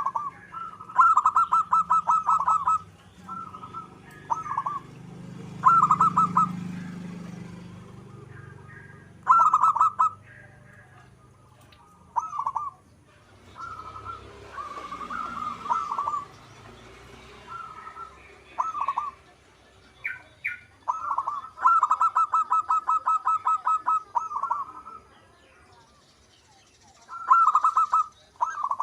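Zebra dove (perkutut) song: bursts of rapid staccato cooing notes, each lasting from half a second to a few seconds. The bursts repeat again and again with short pauses between them.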